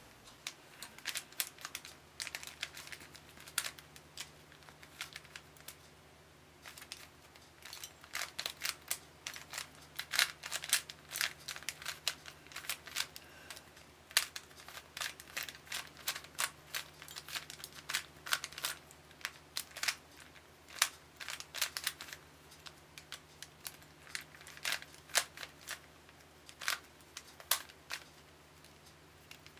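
Rubik's Cube being turned fast by hand: quick runs of irregular plastic clicks and clacks as its layers rotate, with a pause of about two seconds around five seconds in.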